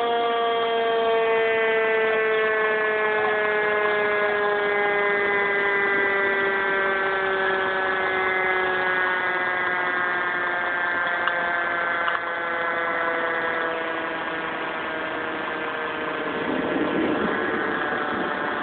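Fire engine siren winding down: one long tone that slides slowly lower in pitch and fades away about sixteen seconds in. Steady rain and engine noise run underneath.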